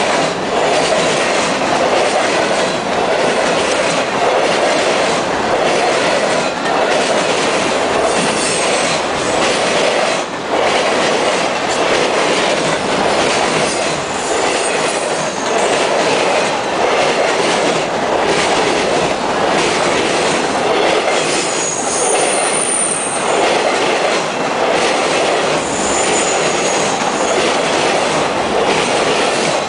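Wisconsin Southern freight train of loaded flatcars passing close by: a steady, loud rumble of steel wheels on rail, with repeated clacks over the rail joints. A few brief high wheel squeals come through along the way.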